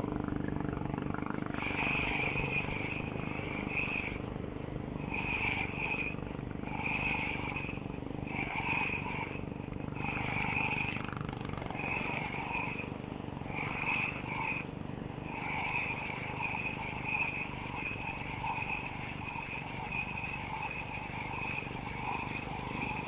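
Fishing reel being cranked to reel in line: a whirring, clicking sound in regular spurts of about a second each, turning into steady continuous cranking about fifteen seconds in, over a steady low rumble.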